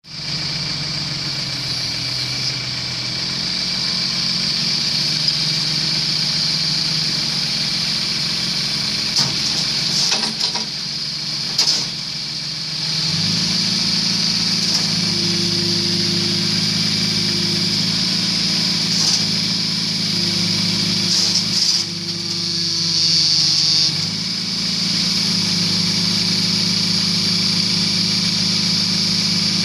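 Mini excavator's diesel engine running steadily, rising in level about halfway through and again near the end as the machine is worked under load, with a faint hydraulic whine at times and a few sharp clanks.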